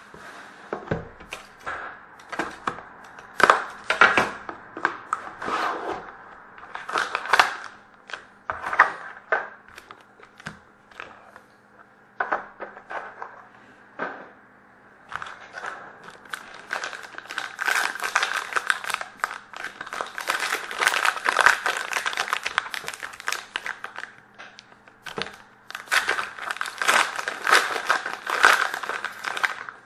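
Plastic wrapping crinkling and tearing, mixed with short scrapes and knocks of handling, as a sealed box of trading cards is cut open and its pack unwrapped. The crinkling comes in irregular clusters and is busiest in the second half.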